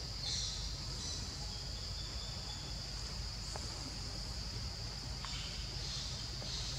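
A steady, high-pitched chorus of insects buzzing continuously, swelling a little now and then, over a low background rumble.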